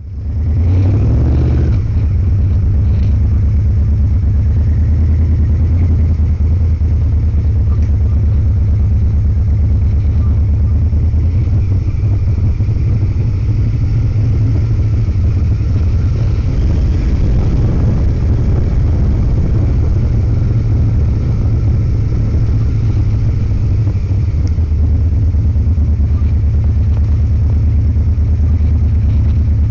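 Motorcycle engine running under way, picked up by the bike's dash-recorder microphone, with its pitch climbing in the first couple of seconds and then holding steady at cruising speed.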